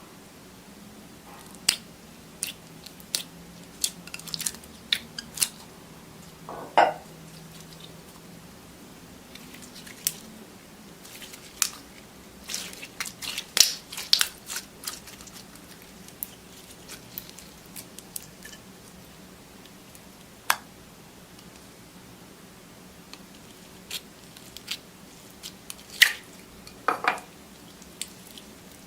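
Slime being pressed and worked by hand: scattered sticky clicks, crackles and small pops at an uneven pace, with a few longer, louder squishes about seven seconds in and near the end.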